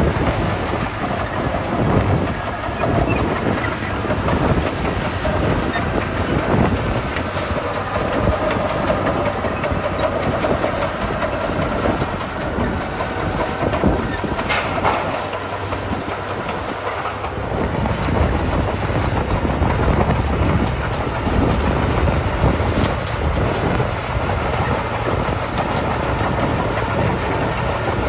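Komatsu D41P crawler bulldozer working gravel: its diesel engine running under load while the steel tracks clatter, as one continuous loud mechanical din.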